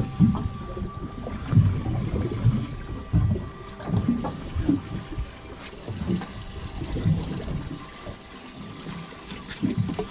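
Water slapping and sloshing against a boat's hull in irregular surges, about one a second, over a faint steady hum.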